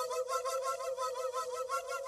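A steady flute-like whistling tone held on one pitch, with a fast flutter in its upper overtones.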